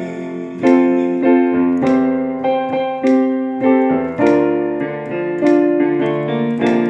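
Instrumental worship music: a keyboard playing slow sustained chords, a new chord struck every half second to a second, with no voice.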